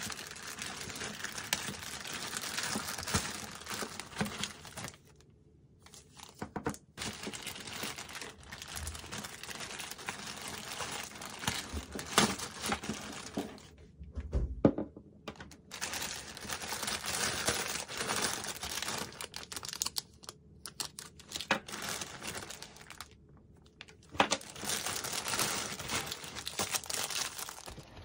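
Clear plastic bags crinkling and rustling as they are handled and pulled open, in several stretches with short pauses between them. A few sharp knocks stand out near the middle.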